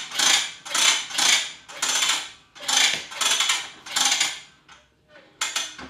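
A Kevlar-braided pressure washer hose being pulled out hand over hand, each pull a rasping swish, about two a second. The pulls stop briefly late on, and there is one more just before the end.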